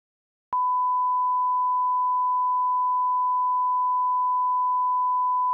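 Line-up test tone played with colour bars: a single steady pure beep at one unchanging pitch. It starts abruptly about half a second in and cuts off just as abruptly about five seconds later.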